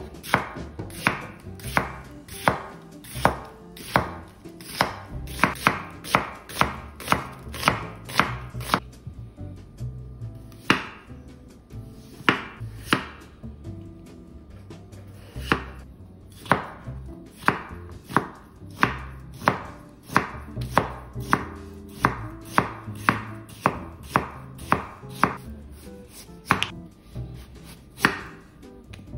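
Chef's knife slicing onion, potato and carrot on a bamboo cutting board: a steady run of sharp knocks of the blade on the board, about two a second, with a few brief pauses.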